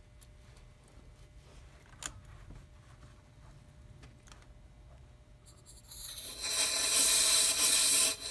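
Faint clicks of brass air fittings being handled, then about six seconds in a loud, steady hiss comes on: compressed air rushing through a UView AirLift venturi tool, drawing the air out of a car's cooling system under vacuum.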